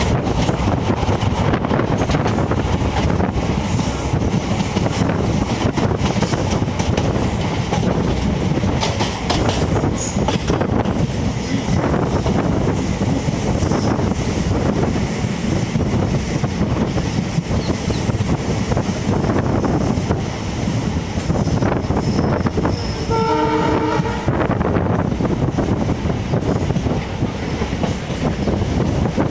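Passenger train running, heard from an open coach window: steady wheel-and-rail rumble and rattle with wind rush. About three-quarters of the way through, a diesel locomotive's horn sounds briefly.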